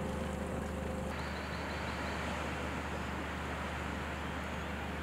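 Boat engine running steadily, a low drone under wind and water noise.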